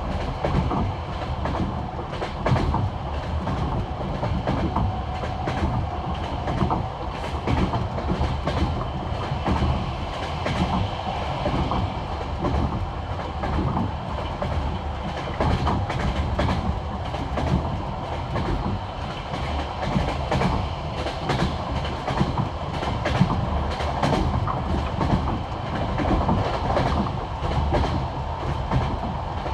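Passenger railway carriage wheels running over jointed track, a steady clickety-clack of wheel sets striking the rail joints over a continuous rumble of the moving train.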